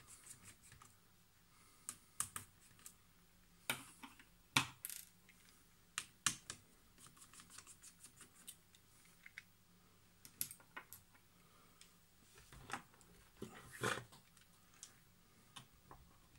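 Scattered light clicks and taps of a small precision screwdriver and tiny screws being worked out of a laptop's plastic display lid, with a few louder knocks among them.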